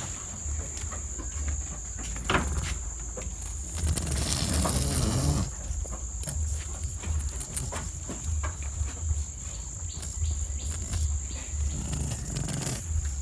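Goats chewing and tearing awar-awar (Ficus septica) leaves, with many small crunches and rustling of the leafy stems, louder for a moment about four seconds in. A steady high insect trill runs underneath.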